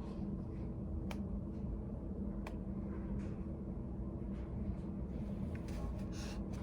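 Study cafe room tone: a steady low hum of ventilation, with two sharp small clicks in the first few seconds and a brief rustle near the end.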